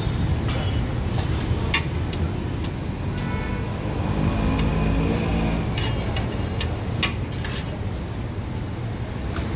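Open-air street-food stall ambience: a steady low rumble of traffic or burner, with scattered sharp metallic clicks and clinks.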